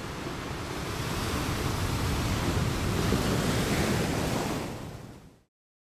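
Rushing noise sound effect for an animated logo ending. It swells for about three seconds, then fades and cuts off suddenly about five and a half seconds in.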